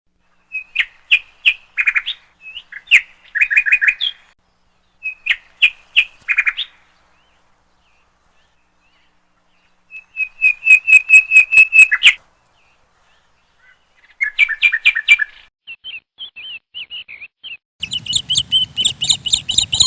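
Songbird chirping in short phrases of quick notes, broken by silent gaps, with one fast run of repeated chirps midway. Near the end the chirping gets denser over a low rumble.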